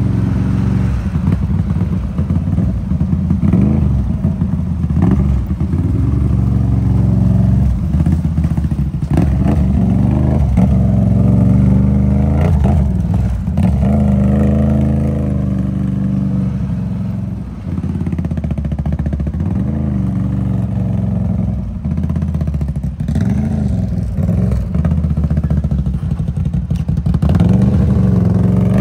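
Off-road vehicle engine running hard under riding load, its pitch rising and falling over and over as the throttle is opened and closed, with scattered knocks and rattles.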